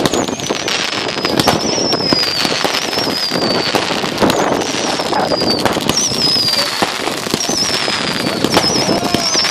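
Consumer fireworks going off: a dense crackle of pops with high whistles that fall in pitch, about one a second, some of them warbling.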